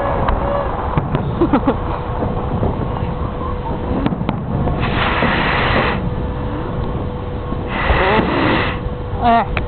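Fireworks display going off: sharp pops and bangs over a steady low rumble, with two stretches of louder hiss about five and eight seconds in.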